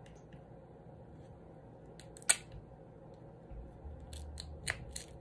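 Crab leg shell cracking and clicking as a fork is pried into it to split it open. There is one sharp crack about two seconds in, then a run of smaller clicks near the end.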